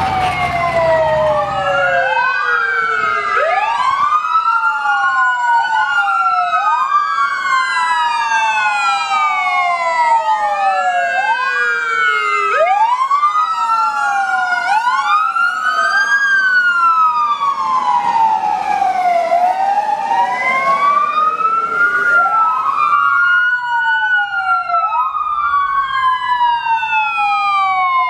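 Several emergency-vehicle sirens wailing at once, their rising and falling tones overlapping and out of step with one another, from a column of fire service vehicles driving past.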